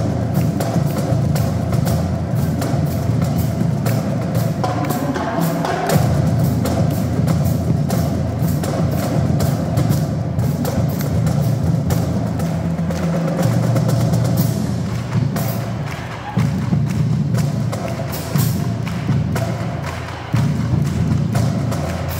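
Marching drumline playing together: Pearl snare drums and tenor drums in rapid stick strokes over bass drums and cymbals.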